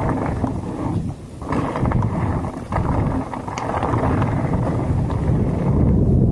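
Wind rushing over the action camera's microphone during a mountain-bike descent, mixed with the crunch of tyres on a gravel trail and small rattles from the bike, getting louder toward the end.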